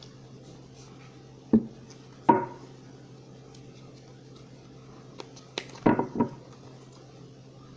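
Oracle cards and deck handled on a table: a few sharp taps and knocks, one about a second and a half in, another near two and a half seconds, and a quick cluster around six seconds, over a low steady hum.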